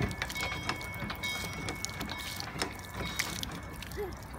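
Water splashing from a hand pump's spout into a wooden trough as the pump handle is worked, with a few sharp knocks from the handle, over a steady low rumble.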